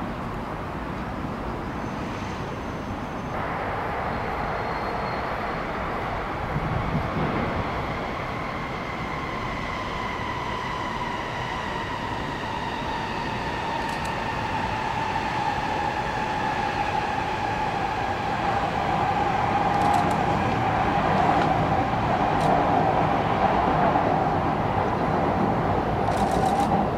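N700S Shinkansen train running in on its viaduct. Its traction motors whine in a tone that falls slowly in pitch as it slows, over a rumble that grows louder.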